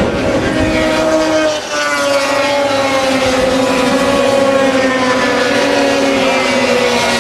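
Racing snowmobile engines in the 500 class running at high revs around an ice oval, their pitch falling slowly as the sleds go by. The sound dips briefly about one and a half seconds in.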